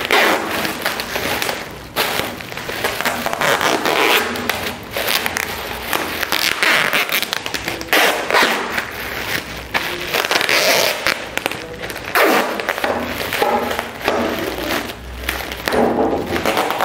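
Adhesive tape pulled off its roll in repeated rasping strips and wound around a polythene bag, with the plastic crinkling and rustling under the hands.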